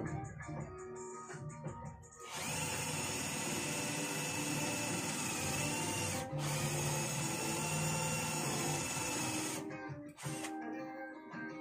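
Cordless drill running at full speed into the wooden door frame in two long runs, with a brief stop about six seconds in, over background music.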